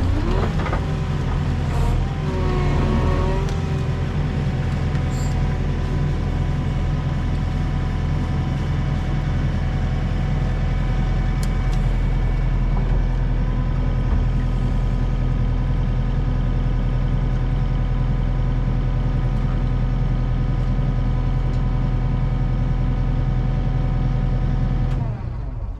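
Skid steer engine running steadily at high revs under load as the loader arms lift to winch the machine out of the mud by rope and snatch block. The sound cuts off suddenly shortly before the end.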